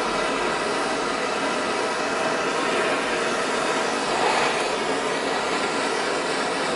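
Handheld gas torch burning with a steady hiss as its blue flame heats a steel gear cluster, swelling slightly about four seconds in.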